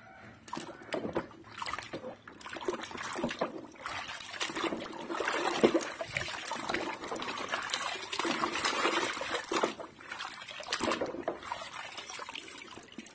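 Water sloshing and splashing in a basin as a plastic toy is dunked and swished about by hand, with water trickling and dripping off it as it is lifted.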